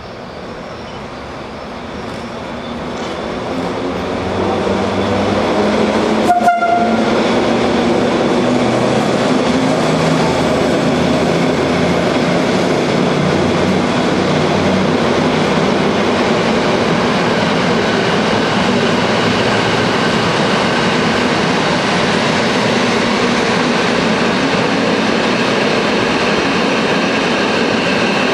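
FS E 646 electric locomotive pulling away with its train of FS type 1959 coaches. The running noise builds over the first five seconds, then stays loud and steady as the locomotive and coaches roll past close by, with a faint steady high whine on top. A sharp click and a very short horn toot come about six seconds in.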